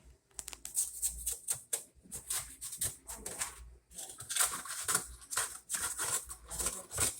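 Rapid, irregular clicks and scrapes, several a second, from hands-on repair work at the refrigerator, growing denser about halfway through.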